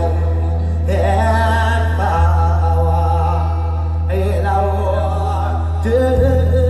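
Male mor lam singer's voice through a stage PA, sung in long wavering, ornamented phrases, ending on a long held note near the end, over a steady low drone.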